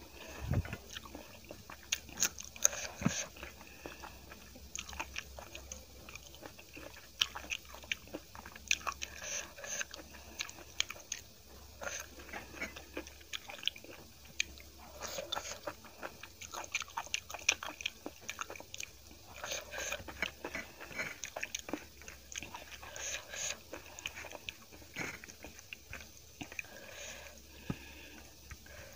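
Close-miked chewing and wet mouth smacks of a person eating rice with kadhi by hand, with many short, irregular clicks, and fingers squishing and mixing the food on a steel plate.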